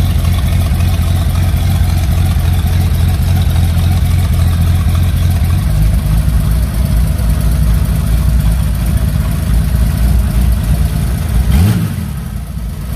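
Custom-built Indian Super Six motorcycle's 2,000 cc six-cylinder engine idling with a steady deep rumble. Near the end there is a short rising blip of the throttle, after which the engine dies down.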